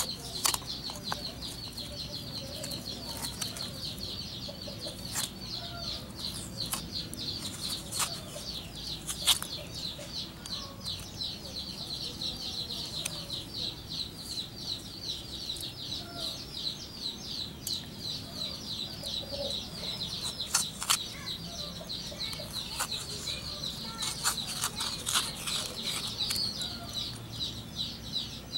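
Metal spoon scraping soft young coconut meat from the shell, with scattered sharp clicks as it knocks against the shell and the glass. Behind it, a steady, fast-pulsing high chirring runs throughout.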